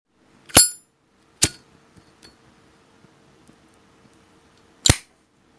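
A Zippo lighter's metal lid flicked open with a ringing ping, a second sharp click soon after, and the lid snapped shut near the end: three sharp metallic clicks in all.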